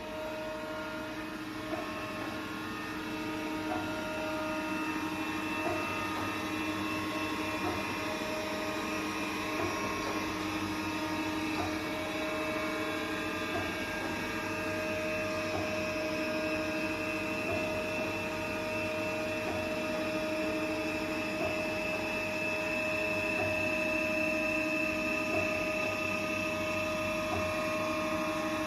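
Jung JE 525 P profile grinding machine running: a steady mechanical hum and whine with several constant tones, and a light click about every two seconds.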